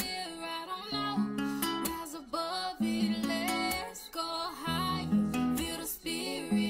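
Background music led by guitar, with stepping melody notes over a steady bass line.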